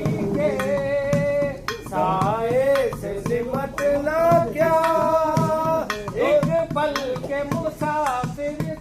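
Music: a voice singing a slow, drawn-out melody with long held notes over drum beats.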